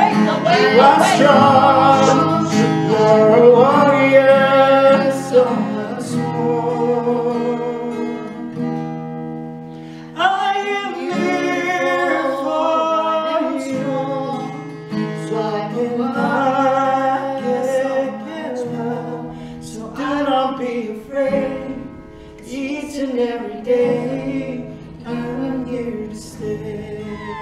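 Several voices singing together, then from about ten seconds in a woman singing to a strummed acoustic guitar.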